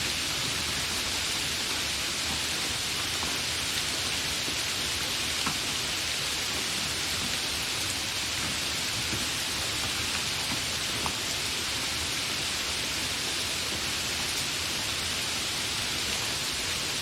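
Steady, fairly heavy rain falling without thunder: an even hiss, with a few single drops ticking out now and then.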